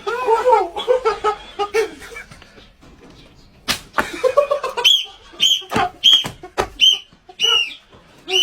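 Voices and laughter, then two sharp slaps, then a run of short, high toots on a whistle, about two a second, each with a smack.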